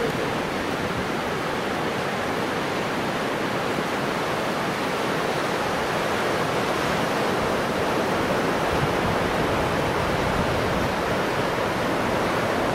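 Steady, even rush of ocean surf washing onto a sandy beach.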